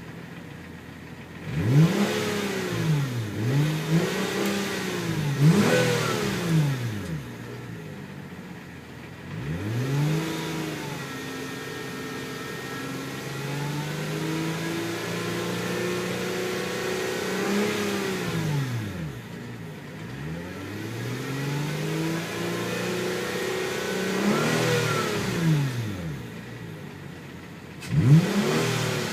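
2004 Hyundai Tiburon V6 revved again and again: several quick blips, then held at raised revs for several seconds, then another rise and fall and a sharp blip near the end. A whine rides on the engine note and rises and falls with engine speed; its cause is unknown to the owner.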